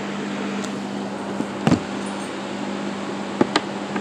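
Steady hum of a fan-like machine running in the background, broken by a few sharp knocks and clicks from handling, one about halfway in and two quick ones near the end.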